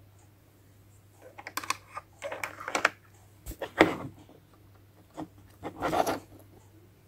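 Small hard toy-kitchen pieces clicking and scraping in four short spells, the loudest about four seconds in.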